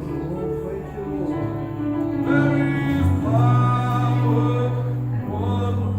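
Gospel music: singing over held low instrumental chords.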